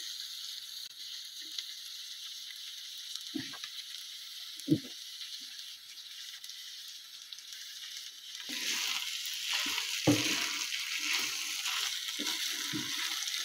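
Chicken and noodles sizzling in a frying pan, a steady hiss with two faint knocks. About eight and a half seconds in, a silicone spatula starts stirring and tossing the food, and the sizzle grows louder with quick scraping strokes.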